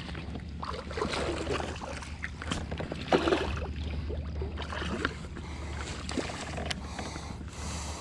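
A hooked striped bass thrashing and splashing at the surface beside a kayak, in irregular splashes with the loudest about three seconds in, over a steady low hum.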